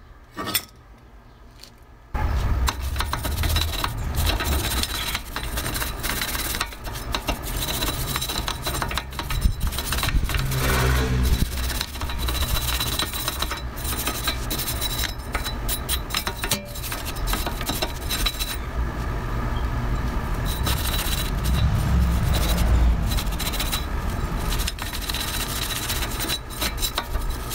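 Handheld wire brush scrubbed hard back and forth over a Honda S2000's rusty rear wheel-hub face, a continuous rasping scrape starting about two seconds in, cleaning off surface rust so the new rotor seats flat.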